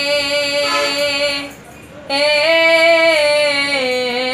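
A boy singing a Bengali lament to his mother unaccompanied, holding one long steady note, breaking for a breath about a second and a half in, then starting a new drawn-out phrase that falls in pitch near the end.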